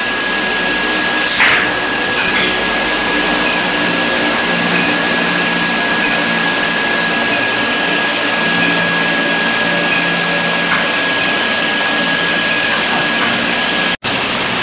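Induction brazing machine running as its coil heats a diamond saw-blade segment red-hot: a steady machine noise with a thin, high, steady whine. A short clank comes about a second and a half in, and the sound cuts off abruptly near the end.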